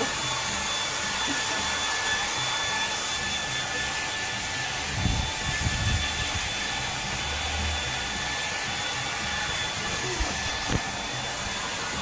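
Handheld hair dryer running steadily as it dries a dog's coat: a constant rush of air with a thin steady whine. A few low thumps come about five to six seconds in.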